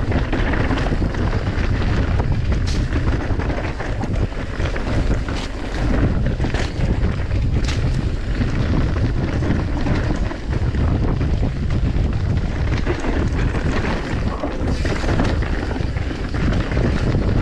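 Wind buffeting the microphone while riding a bicycle, a steady low rumbling rush, with a few sharp knocks scattered through it.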